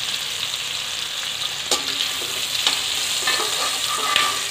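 Onion, capsicum and tomato pieces sizzling steadily in hot oil in a stainless-steel kadai, with a few clinks and scrapes of a metal slotted spoon as the vegetables are scooped out.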